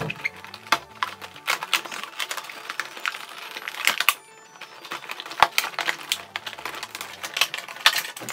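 Clear plastic blister packaging crinkling and crackling as it is handled, with many irregular sharp clicks as an action figure is worked out of its plastic tray.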